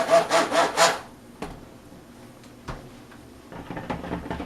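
Rhythmic rubbing or scraping strokes, about four a second, that stop about a second in, followed by a couple of light clicks and quiet handling sounds.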